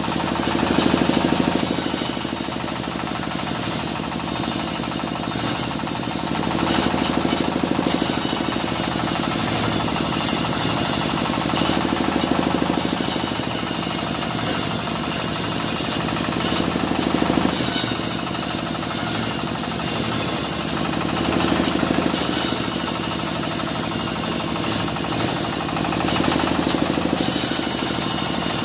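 Engine-driven sawmill running steadily while sawing small mahogany logs, with a brighter hiss coming back every five seconds or so.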